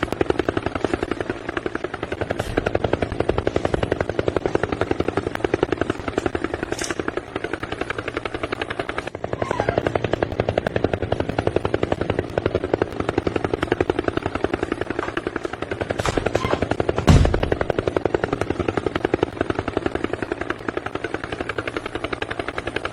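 A machine running steadily with a fast, even pulse throughout, with a brief louder thump about seventeen seconds in.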